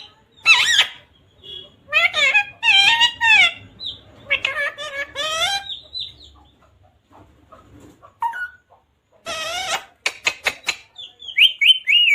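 Pet parrot chirping and giving high, speech-like calls in short bursts, with a quieter pause in the middle and a run of quick chirps near the end.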